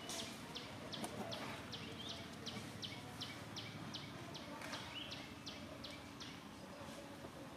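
A bird calling in a rapid, even series of short high chirps, about three a second, that stops about six seconds in, over steady forest background noise.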